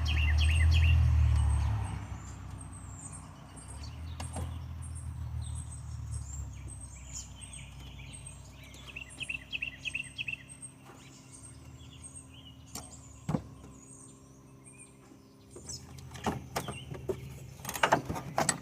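Birds chirping outdoors over a low rumble that swells in the first two seconds and again a few seconds later, with scattered clicks and knocks that cluster near the end.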